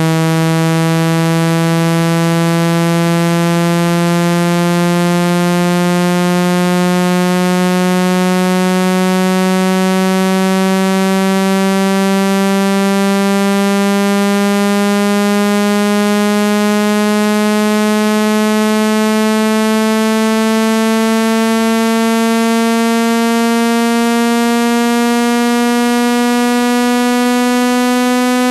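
Synthesized water-eject tone: a loud, buzzy low tone, rich in overtones, whose pitch glides slowly and steadily upward. It is meant to be played at full volume so the speaker's vibration pushes trapped water out of the grille.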